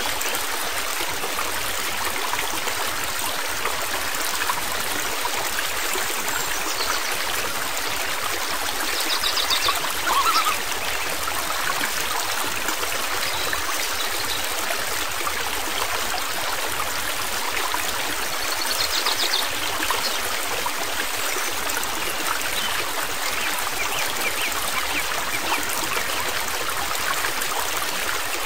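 Steady rushing of flowing stream water, with two brief faint high trills about a third and two thirds of the way through.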